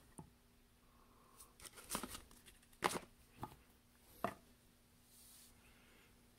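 Handling noise from a smartwatch and its cardboard box: four light clicks and taps, the loudest about three seconds in, with a soft rustle near the start.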